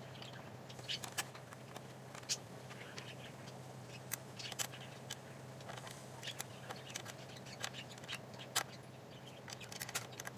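Hex key and fingers working the bolts on a Onewheel GT's fender and side rail: irregular small clicks and scrapes, a few sharper ticks among them.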